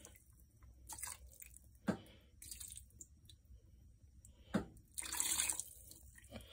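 Broth being poured from a glass bowl into a pot of lima beans, splashing and dripping in short spurts, with a few sharp clicks.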